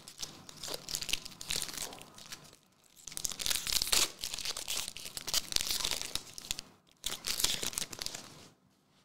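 Foil trading card pack wrappers crinkling as they are handled and torn open. The crinkling comes in three bouts, with short pauses about two and a half and about seven seconds in.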